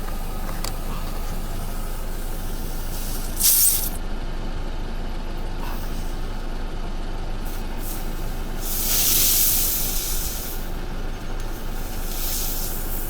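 Air hissing out of a punctured, bulging tyre in short rushes: one brief rush about three and a half seconds in, a longer one of over a second around nine seconds in, and a fainter one near the end, over steady background noise. The plug has not sealed the hole and the tyre is still leaking.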